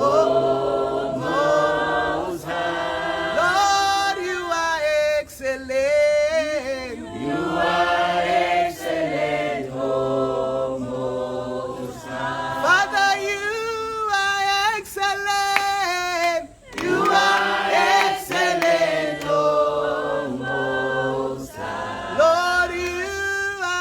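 A group of voices singing a slow worship song together, with long held notes.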